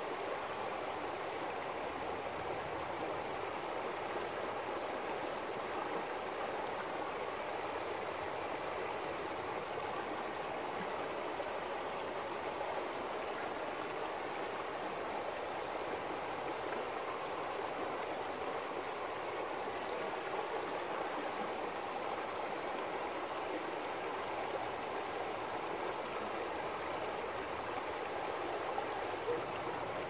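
Shallow river flowing steadily over gravel and around stones, a continuous babble of running water.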